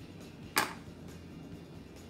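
A single short, sharp click about half a second in, over faint background music.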